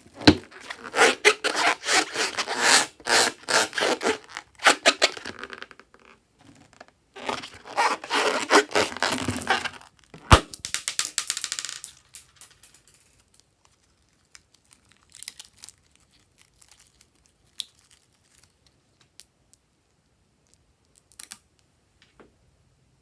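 Slime being worked by hand: dense crackling and crinkling in two long stretches, with one sharp snap about ten seconds in, then mostly quiet with a few faint clicks.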